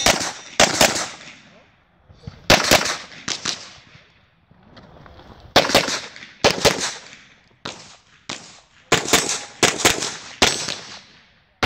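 Sig Sauer MPX 9mm pistol-caliber carbine firing in quick pairs and short strings of shots, each shot sharp and ringing, with pauses of a second or two between groups.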